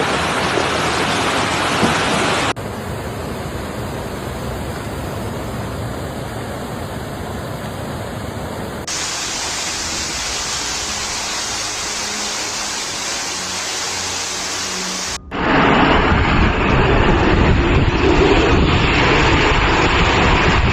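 Heavy storm downpour, a steady rushing noise, over a run of short clips that cut abruptly about 2.5, 9 and 15 seconds in; the last clip is the loudest.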